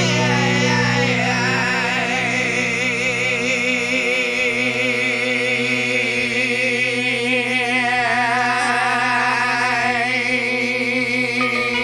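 Rock music played from a vinyl record: a long held note wavering with vibrato over steady sustained chords.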